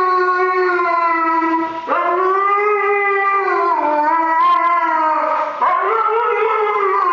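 A husky howling during its bath: three long, drawn-out howls with a slightly wavering pitch, each breaking off briefly for breath, about two seconds in and again about five and a half seconds in.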